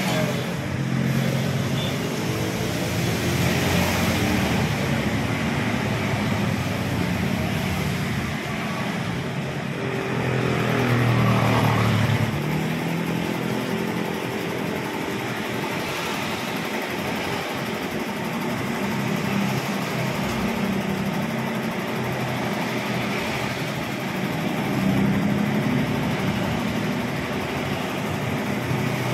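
Homemade carpet spin dryer made from a used barrel: its motor running and the drum spinning at speed, a steady low mechanical hum that drifts up and down in pitch and swells briefly about eleven seconds in. The machine is running stably.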